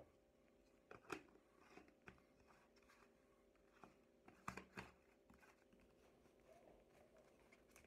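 Near silence: room tone with a faint hum and a few faint clicks and knocks from handling a plastic protein shaker cup, about a second in and again around four and a half to five seconds in.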